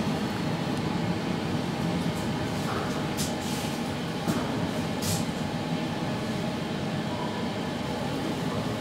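Traction elevator car travelling through its shaft: a steady rumble of the moving car, with a couple of brief hissing scrapes about three and five seconds in.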